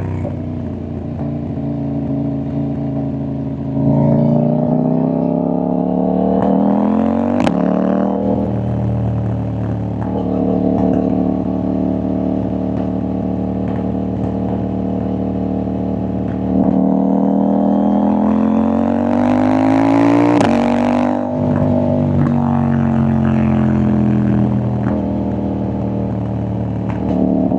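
CFMoto 800NK parallel-twin engine and exhaust on the move: revs climb about four seconds in, with a single sharp crack near seven seconds, settle to a steady cruise, climb again with a rush of wind around twenty seconds, then fall away as the throttle closes.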